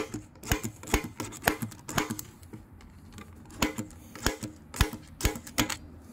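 Spring-loaded center punch snapping down, again and again, on a steel pin in a Shimano 10-speed cassette, driving out the pin that holds the cogs together. About a dozen sharp metallic clicks, roughly two a second, with a short pause near the middle.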